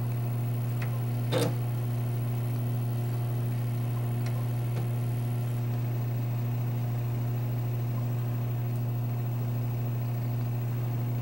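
Steady low electrical hum from an Amiga computer as it slowly loads an animation, with a few faint clicks, one of them a little over a second in.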